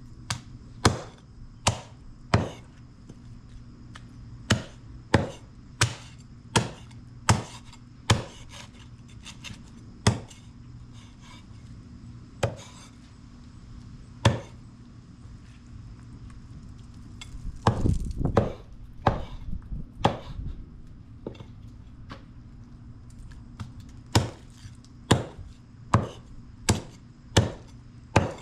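Raw chicken being chopped into pieces through the bone: sharp single chops in runs of several, roughly one a second, with a pause about halfway and a quick flurry of knocks just after it.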